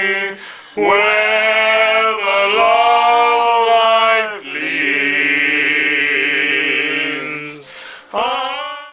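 A small group of male voices singing a slow Christmas ballad. They hold two long notes, the second with a wavering vibrato, and start a third near the end.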